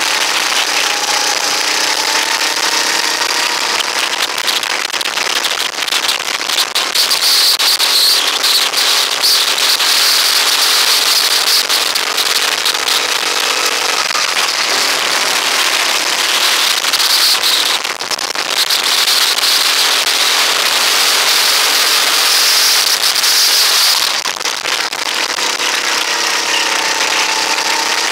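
Rental go-kart engine running hard, its pitch rising and falling as the kart accelerates and eases off through corners, with a constant crackling noise over it. The level drops briefly twice, about two-thirds of the way in and again near the end.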